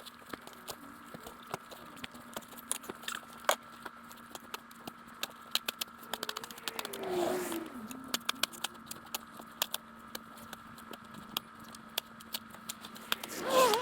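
Shoveling icy, heavy snow: a run of irregular clicks, rattles and scrapes over a faint steady hum, with a falling pitched sound about seven seconds in and a louder one near the end.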